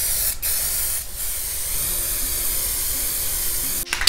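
Aerosol spray-paint can hissing steadily as it lays a finishing coat of yellow acrylic spray paint, with brief breaks in the spray about half a second and a second in. The spray stops suddenly near the end.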